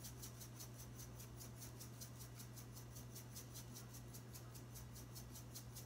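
Salt shaker shaken quickly, a faint rattle of about six shakes a second, over a steady low electrical hum.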